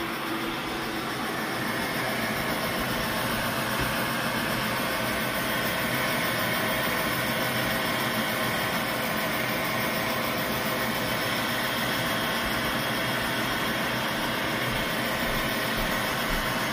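Old electric hot-air gun, the kind used to thaw refrigeration coils, running steadily: its fan motor hums with a few steady tones over a rush of blown air.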